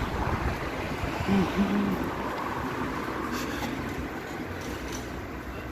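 Street traffic noise from a passing vehicle, a low rumble that fades away. Two short low tones come about a second and a half in.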